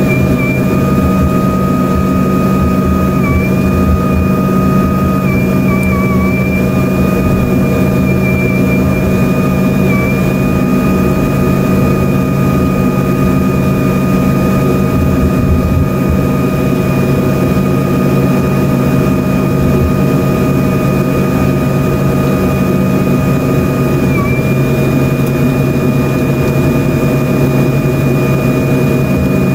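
Steady loud jet noise inside the cabin of an Embraer ERJ-145: the low rumble of its rear-mounted Rolls-Royce AE 3007 turbofans, with a steady high engine whine that dips slightly now and then.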